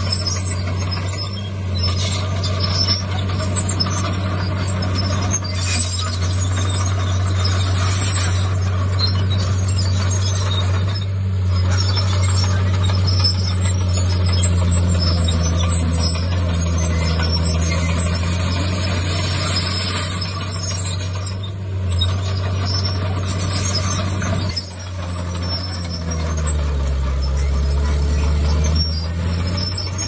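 Komatsu D51PX bulldozer's diesel engine running steadily at working load, with a few faint knocks; near the end the engine note drops and then climbs back up.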